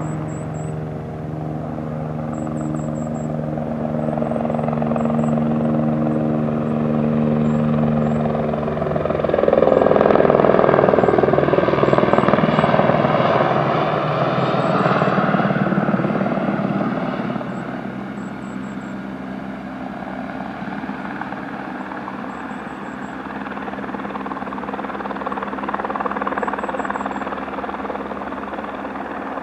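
Aérospatiale AS 350 B Ecureuil single-turbine helicopter flying with a sling load hanging beneath it, its rotor and engine hum steady. The hum grows louder as the helicopter passes closest, about a third of the way in, then drops back somewhat for the rest.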